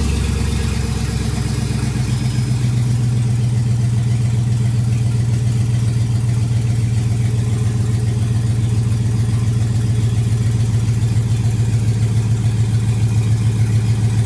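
Swapped-in 5.3-litre LS V8 of a 1985 Chevrolet K10 pickup idling steadily, heard from inside the cab.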